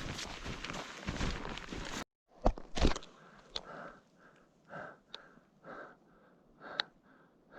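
Footsteps in snow on a mountain climb. A dense run of crunching gives way to two sharp knocks a little over two seconds in, then slower, evenly spaced steps.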